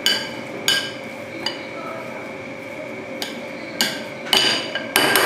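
Metal potato masher pressing boiled potatoes in a glass bowl, its head knocking sharply against the glass about seven times at uneven intervals, with a longer gap in the middle.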